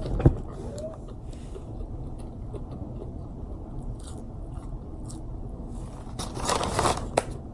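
Close-up chewing and biting of a crispy fried chicken sandwich, with small crunches and clicks and a louder crunching, rustling bite near the end.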